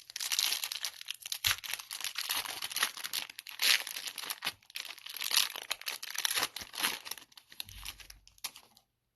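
Trading-card pack wrapper being torn open and crumpled: a dense, crackly crinkling that stops shortly before the end.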